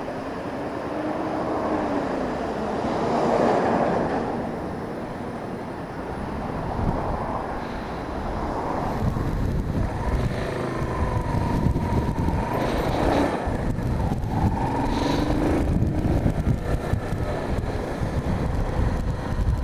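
Road traffic going past, several vehicles that swell and fade, with wind buffeting the microphone.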